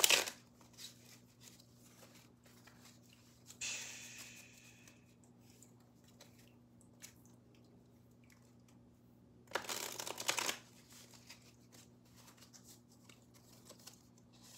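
A deck of tarot cards being shuffled and handled: short bursts of shuffling at the start, about four seconds in and about ten seconds in, the last the loudest, with faint card taps and slides between them.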